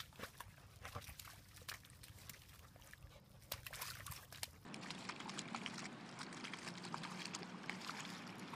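A dog rolling in a muddy puddle, with scattered wet slaps and squelches. A little under five seconds in, this gives way to a dog pawing and splashing in a puddle of water, a denser, steadier sloshing.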